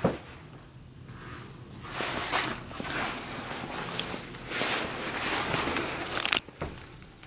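Shuffling and rustling from someone moving about and posing, with a sharp click at the start and another about six seconds in.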